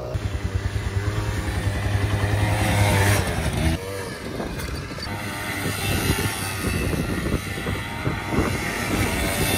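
Small youth quad bike's engine pulling away, climbing in pitch and loudness for about three seconds. It cuts sharply just before four seconds in, then runs on more distantly with the throttle rising and falling as it is ridden around.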